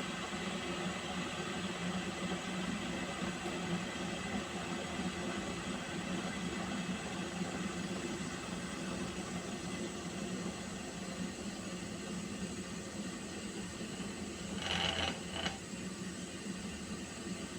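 Pot of water heating up to the boil: a steady hissing hum, broken by two brief louder noises about fifteen seconds in.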